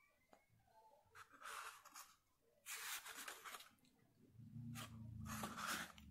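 Pages of a paperback book being turned by hand: three soft papery rustles.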